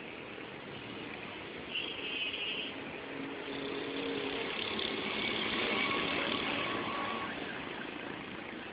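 Street traffic: a motor vehicle's engine grows louder as it passes, peaking in the middle and fading away. A brief high tone sounds about two seconds in.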